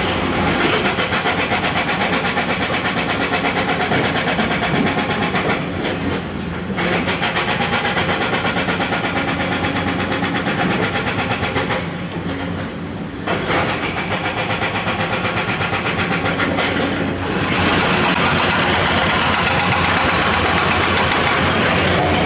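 Komatsu crawler excavators' diesel engines running close by under working load, a loud, rapid, even chugging. The sound dips briefly twice and then runs steadier.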